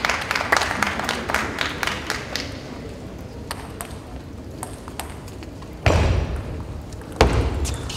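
Crowd clapping dying away, then a few sharp ticks of a table tennis ball bounced at the table. Two loud thuds come near the end.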